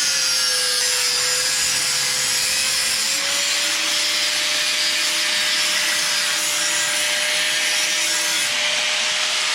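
A power saw cutting steadily. Its motor hum dips slightly in pitch about a second in and comes back up around three seconds.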